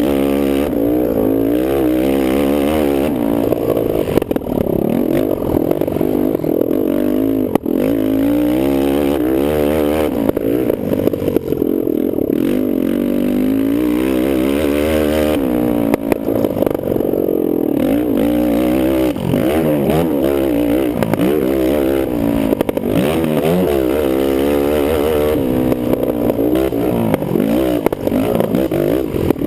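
Kawasaki KFX450R quad's single-cylinder four-stroke engine ridden hard on a motocross track, revving up and down continually with the throttle, its pitch rising and falling every second or two.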